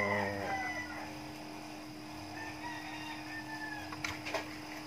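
A rooster crowing in the background over a steady electrical hum, with two sharp clicks near the end.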